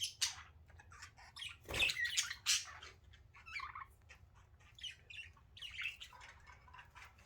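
Several budgerigars chattering, with rapid short chirps and scratchy squawks overlapping, louder around the middle.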